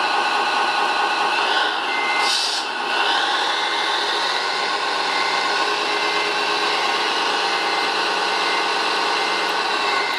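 Radio-controlled Liebherr mobile crane's electric winch and gears whining steadily as the hook is lowered, with a faint beep repeating about every second and a short hiss about two seconds in.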